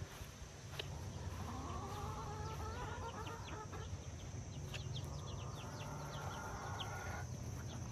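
Backyard chickens calling: two long drawn-out calls that rise in pitch, the first starting about a second in and the second about halfway through, with many short high chirps between them, over a steady low rumble.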